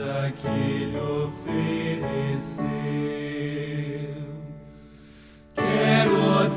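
Hymn music with chords changing about every half second. It fades down low around four to five seconds in, then a fuller, louder passage starts abruptly about five and a half seconds in, as one hymn ends and the next begins.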